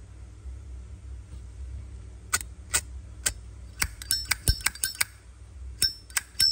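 Metal Zippo lighter being handled: a few separate sharp clicks about two seconds in, then a quicker run of metallic clicks and clinks with a short bright ring.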